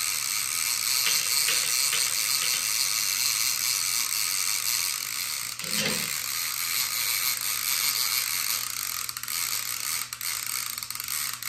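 Line-counter trolling reel cranked steadily by hand, its gears and line counter whirring as fluorocarbon line winds onto the spool.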